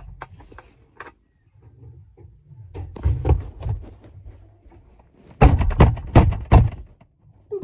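Dull thumps and knocks. A few soft low thuds come about three seconds in, then a run of five or so loud sharp knocks within about a second, starting about five and a half seconds in.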